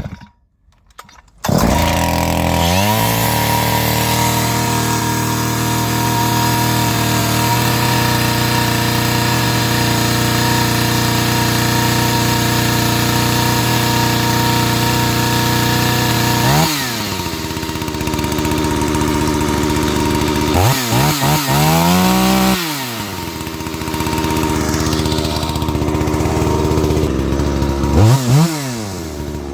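Farmmac F380W 72 cc two-stroke chainsaw running at high revs, starting abruptly about a second and a half in and holding a steady note. Later its engine speed drops and climbs back three times.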